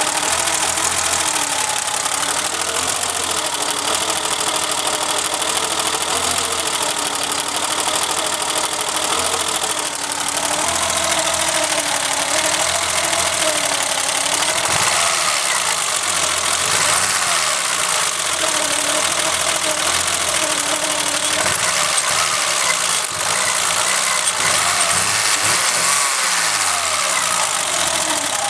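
Car engine running roughly with a bad misfire, its speed wavering up and down unevenly. The owner first put the misfire down to the timing belt skipping a tooth, then traced it to the distributor cap arcing so that cylinder two's spark plug did not fire.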